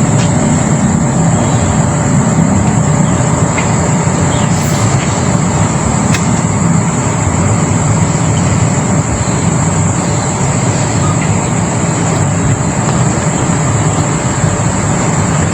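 Steady, loud rumbling noise with a constant high-pitched whine on top and a few faint ticks.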